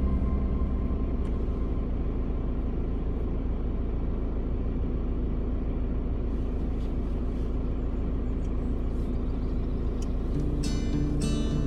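Car driving, a steady low rumble of engine and road noise. An acoustic guitar begins strumming near the end.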